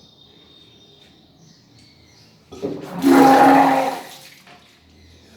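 A person retching and vomiting: a strained heave of the voice together with a loud gush of liquid, lasting about a second and a half from about two and a half seconds in. This is induced therapeutic vomiting (vaman), bringing up drunk liquid and mucus (kapha).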